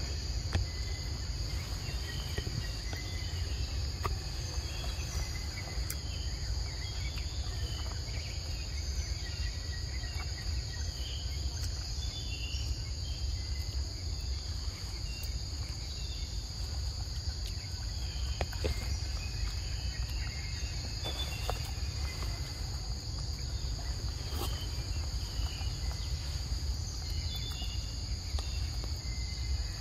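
Steady high-pitched drone of forest insects, over a low rumble, with scattered short chirps and a few faint clicks.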